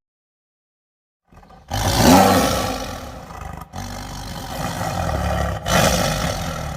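A large animal roaring loudly, starting after about a second and a half of silence and coming in long rough roars with short breaks between them.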